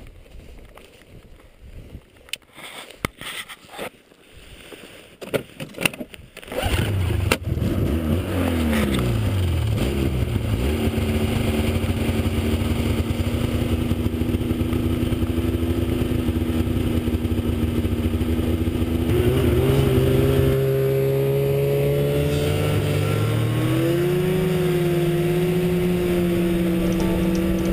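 Snowmobile engine starting about six seconds in after some knocks and rustling, settling to a steady idle, then revving up as the sled pulls away.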